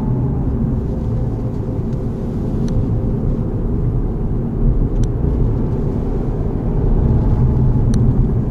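Toyota GR Yaris on the move: a steady low rumble of road and engine noise, with three faint short ticks spread through it.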